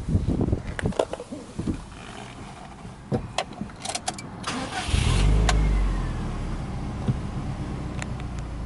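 Subaru Impreza WRX STi's turbocharged EJ20 flat-four heard from inside the cabin on a start: a few clicks, a brief crank, then the engine catches about five seconds in with a short flare of revs. It then settles into a steady idle.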